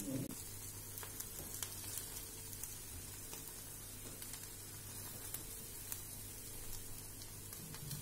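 Sabudana batter sizzling quietly in a ghee-greased appe pan over a low gas flame, with scattered small pops and crackles.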